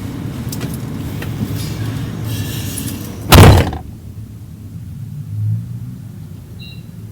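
A steady low rumble with scattered light clicks, broken by a single loud thump a little over three seconds in.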